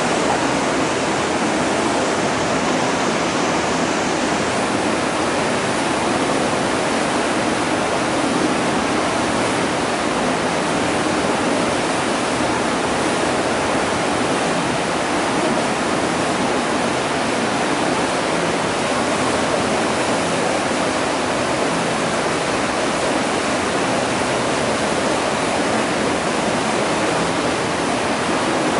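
Steady rushing of water churning through a water-treatment filtration unit, an even noise that holds constant with no breaks.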